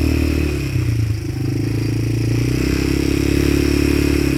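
Engine of a vehicle being driven through mud, running steadily under load. Its pitch dips briefly about a second in, then holds steady.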